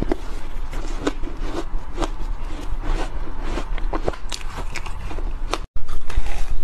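Mouth crunching and chewing soft, powdery ice, crisp crunches about twice a second. Near the end, after a brief cut, louder bites crunch into a frosty block of ice.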